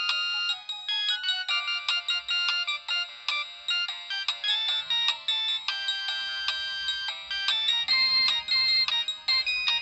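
Polyphonic ringtone melody played on a Samsung SGH-T809 phone's speaker: a quick run of short, bright notes with no bass.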